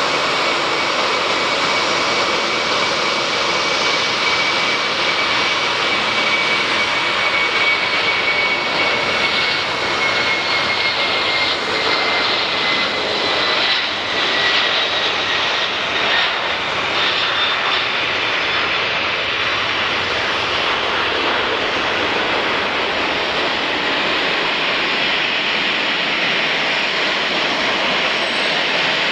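Boeing 747-400's four turbofan engines at takeoff thrust, a steady jet roar through the takeoff roll and climb-out. A high engine whine rides on top and drops slightly in pitch as the jet passes, about halfway through.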